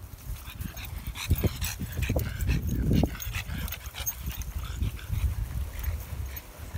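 Dogs on leads panting and snuffling, over repeated low thumps and rumble from a handheld phone carried by someone walking across grass.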